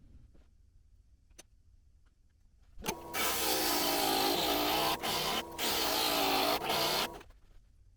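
Stained glass grinder running as cut glass pieces are ground, its motor's pitch wavering. It starts about three seconds in, breaks off briefly twice, and stops about a second before the end.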